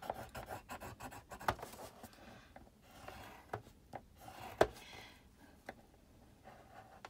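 Paper being creased and folded by hand on a plastic scoring board: rubbing and scraping with scattered small clicks, and one sharper click a bit past halfway.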